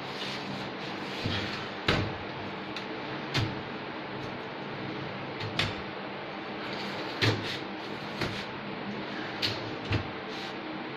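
Aluminium kitchen cabinet doors being opened and shut: a series of about seven sharp knocks and clacks at uneven intervals over a steady background hiss.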